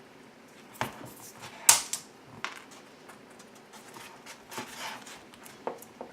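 Handling noise from a car audio speaker being taken apart: scattered clicks and knocks, the sharpest a little under two seconds in, with a short rustle about four and a half seconds in.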